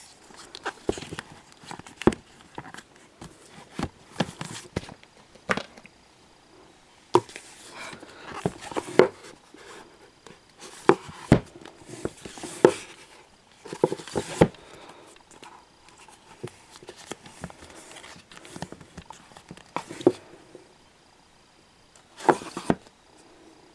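Fingers tapping and brushing along the spines of books on a shelf: irregular clicks and soft rustles that come in clusters with short quiet gaps.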